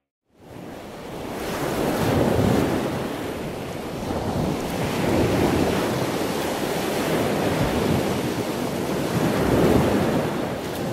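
Sea waves breaking and surging against a rocky shore, the roar swelling and easing as each wave comes in. The sound starts suddenly about half a second in.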